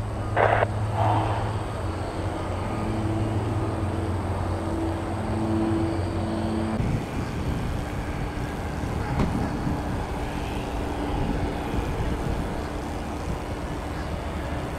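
A steady low engine hum for the first several seconds. About seven seconds in it gives way suddenly to the steady rumble of a twin-engine jet airliner's engines at takeoff power, heard from the runway's edge as the plane rolls and lifts off.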